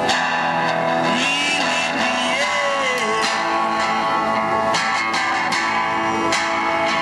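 Music led by guitar, with plucked and strummed notes.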